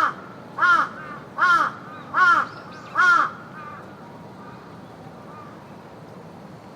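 A raven calling: five harsh caws about 0.8 s apart, then only the steady hiss of the park's background ambience.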